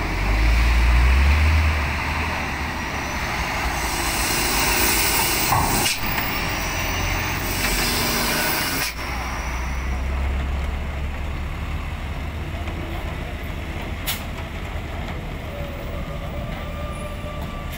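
Heavily loaded cargo trucks driving off a ferry down its steel ramp, diesel engine rumbling, loudest in the first two seconds. Air brakes hiss twice, about four to six and seven to nine seconds in, each cutting off sharply, with a faint high brake squeal.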